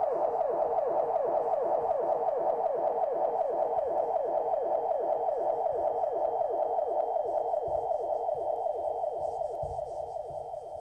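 Electronic synthesizer music: a fast, even pattern of short notes, each dropping in pitch, about five a second, fading out near the end. A few low thuds sound near the end.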